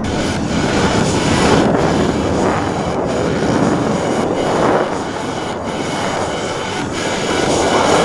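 Propeller airplanes flying by: a continuous engine drone that swells and eases several times as they pass.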